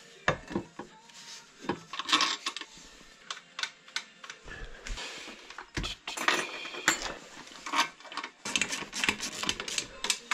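Metal hand tools clicking and clinking in irregular knocks: a socket wrench working at a moped's exhaust mounting, then steel spanners jangling against one another on a wall tool board about six seconds in.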